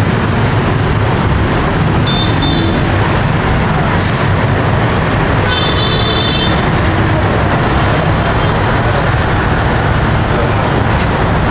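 Steady road traffic noise from a busy street, a continuous engine rumble, with two short high-pitched tones about two and six seconds in.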